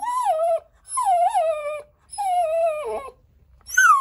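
Dog whining at the door: repeated high, wavering whines, each about a second long, three and the start of a fourth near the end. The whining is the dog's signal that it wants to go outside.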